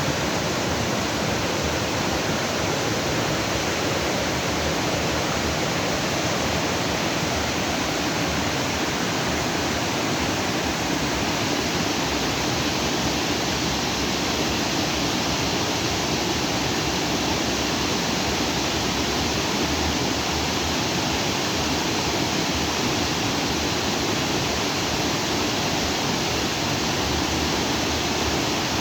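Fast stream of water rushing over rocks, a steady, even rush that does not change.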